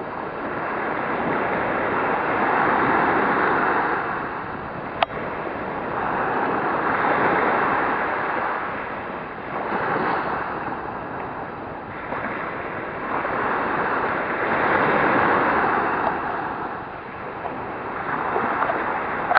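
Sea waves washing in: a continuous rush of water noise that swells and fades every four to five seconds, with a short click about five seconds in.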